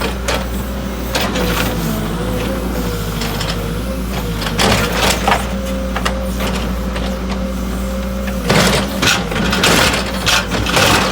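A large engine running steadily, with scrapes and knocks over it that become louder and more frequent about eight and a half seconds in.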